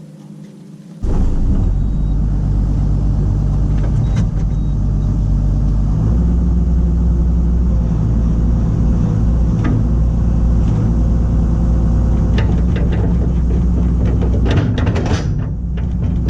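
Kobelco SK250LC excavator's diesel engine running loud and steady, cutting in suddenly about a second in, with its low drone shifting about six seconds in. A run of sharp clicks and knocks near the end.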